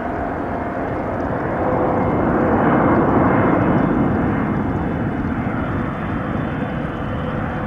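Boeing 777-300ER airliner's GE90 turbofan engines heard as it passes on landing: steady jet noise that swells to its loudest about three seconds in, then eases off.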